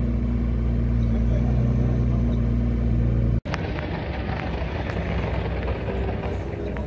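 Sports car engines idling, a steady low rumble. About halfway through the sound breaks off for an instant, then idling resumes slightly quieter and rougher.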